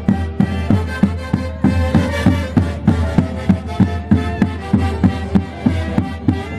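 Andean orquesta típica playing Santiago festival music: sustained melody instruments over a steady drum beat of about three strokes a second.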